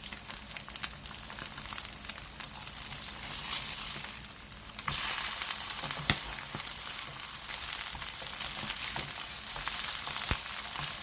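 Food sizzling as it fries in a pan, a steady hiss with small crackles that gets louder about five seconds in.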